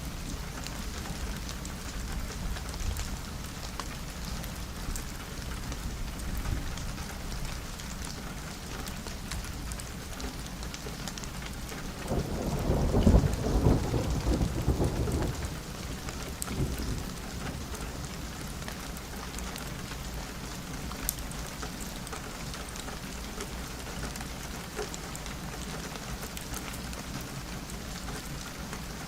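Steady rain falling on a window, with a rumble of thunder that swells about twelve seconds in and dies away a few seconds later.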